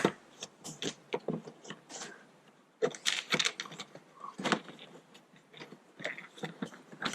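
Scattered small clicks, scrapes and rattles of a screwdriver and the plastic parts of a 1995 Honda Civic's inner door handle and door panel as the handle's screw is taken out, with a busier run of clicks about three seconds in.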